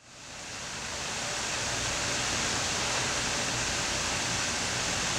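A steady rushing noise fades in over the first second, then holds level and even, with no rhythm or tones.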